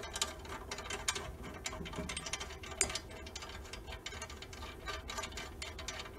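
Rapid, irregular metal clicking and scraping as a lab tripod's fitting is twisted by hand into a hole in a metal beam frame.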